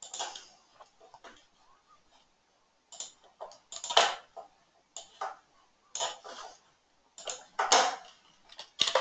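Scattered, irregular clicks and taps of a computer mouse and keyboard, picked up by a desk microphone, with short quiet gaps between them.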